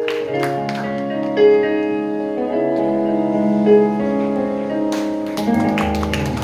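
Yamaha electronic keyboard on a piano sound playing slow, sustained chords as the closing bars of a song, with no singing. A deep bass note comes in near the end.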